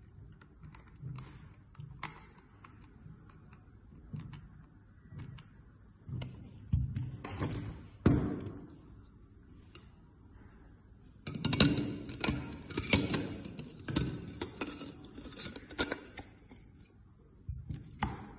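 Plastic parts of an electric pencil sharpener being handled and fitted together: scattered small clicks and knocks, a couple of louder knocks about seven and eight seconds in, then a dense run of clattering plastic clicks from about eleven to sixteen seconds in as the clear shavings bin is fitted over the blade housing.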